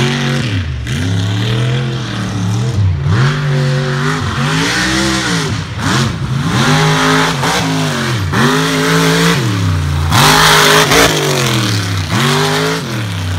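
Mud truck engine revved up and down over and over, roughly once a second, each rev climbing and dropping in pitch, on a dirt drag strip; a louder rush of hiss comes about ten seconds in.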